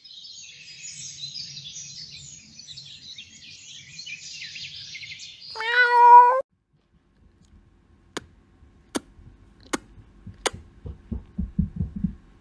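Faint scratchy marker-on-board sound for the first five seconds or so, then a single loud domestic cat meow about six seconds in. After a pause come four sharp clicks just under a second apart, then a quick run of low soft thumps near the end.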